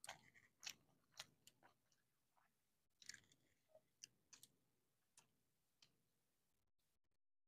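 Faint sounds of people eating by hand: chewing and fingers mixing rice on steel plates, heard as a scatter of small, soft clicks.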